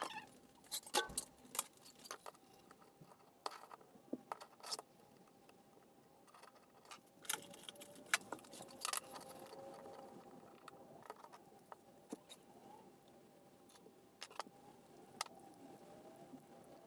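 Scattered light clicks and clatter of small hard objects being handled, irregular and quiet, with a faint steady hum underneath.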